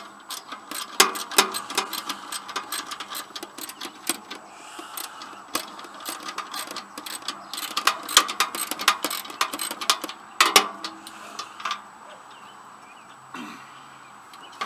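Ratchet wrench clicking in quick runs of sharp ticks as bolts on a riding mower's seat bracket are worked loose, with metal tools clinking; one louder click about ten seconds in.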